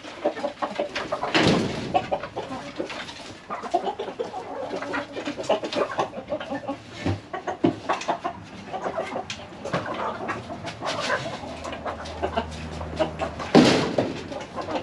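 Laying hens clucking in a coop, with scattered knocks and rustling; near the end there is a single loud knock.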